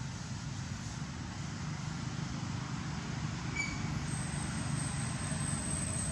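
Steady low rumble of outdoor background noise, with one short high chirp about three and a half seconds in and a thin, steady high-pitched tone starting about a second later.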